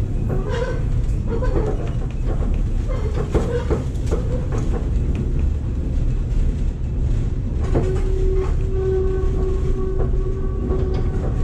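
Streetcar running on rail, a steady low rumble with occasional knocks from the wheels. From about eight seconds in, a steady whine lasts until near the end.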